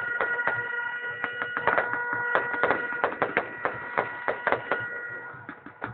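Aerial fireworks going off in a rapid, irregular run of sharp bangs and crackles. Under them a steady shrill pitched tone is held for about five seconds and then fades, and the bangs thin out near the end.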